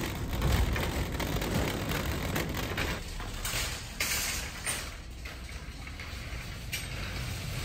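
Shopping cart rattling as it is pushed, then a steady low rumble of ambient noise with a few sharp knocks.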